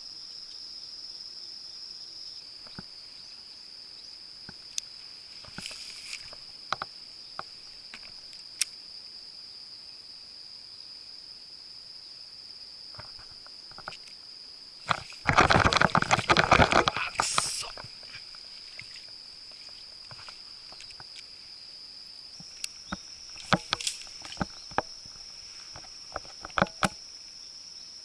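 A steady high-pitched insect drone runs through, with scattered light clicks and knocks. About fifteen seconds in there is a louder burst of noise lasting about two and a half seconds.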